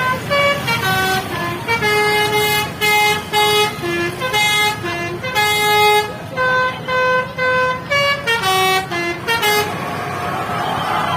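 Basuri telolet bus horn playing a fast melody of short, clear notes that jump between pitches, roughly two to three notes a second. Near the end the tune stops.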